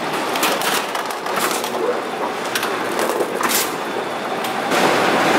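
Metal shopping cart rattling as it rides an inclined moving walkway, over the walkway's steady mechanical rumble; a little louder near the end.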